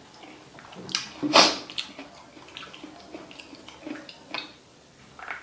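Mouth sounds of eating and drinking: chewing and wet mouth noises, with one loud breathy burst about a second and a half in, then sips and swallows from a drink can.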